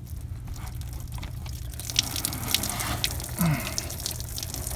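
Leftover liquid, enzyme drain cleaner, running and dripping out of a freshly cut drain pipe, heaviest in the middle with scattered drips. A steady low hum sits underneath.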